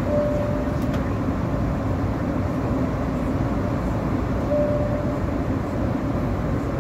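Steady cabin noise inside an Airbus A330-200 airliner, a dense rumble and hiss. A short, thin tone sounds twice over it, once just after the start and again about two thirds of the way through.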